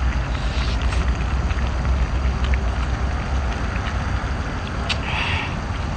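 A person eating seafood with chopsticks: chewing and soft mouth sounds, with a brief slurp or blow about five seconds in, over a steady low rumble.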